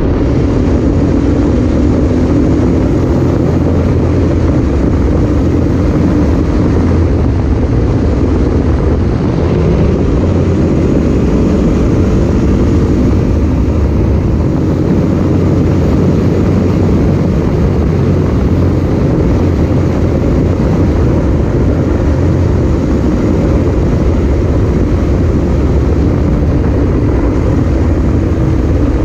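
Wind rushing over the camera microphone on a moving motorcycle, with the Zongshen RX3's engine running steadily underneath at road speed.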